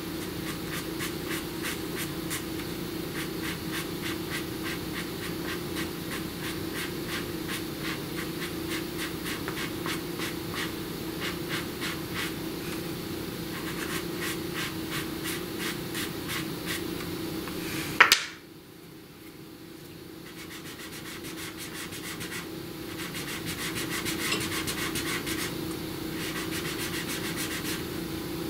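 Soft pastel stick scratching and rubbing over textured paper in quick repeated strokes, over a steady low hum. A sudden loud click comes about eighteen seconds in, after which the strokes are fainter for a few seconds before picking up again.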